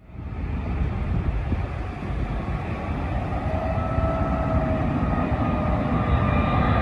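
Jet airliner approaching to land: a deep engine rumble with whining fan tones above it, growing steadily louder.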